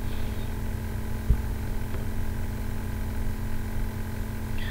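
Steady low rumble with a faint even hum, background noise under the recording, with one soft low thump about a second in.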